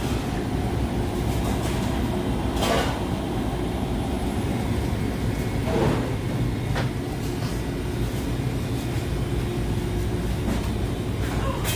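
Steady low road and engine rumble heard from inside a moving car, with a couple of brief louder swishes about three and six seconds in.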